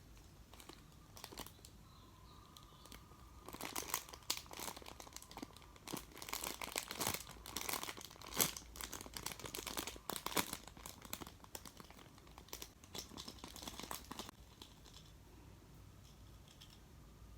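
Crinkling and rustling of thin plastic wrapping being handled, in irregular crackly bursts from about three and a half seconds in until about fourteen seconds.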